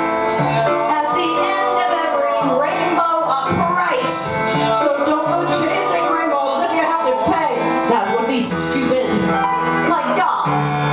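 Live music: a singer belting a song into a microphone over a keyboard accompaniment.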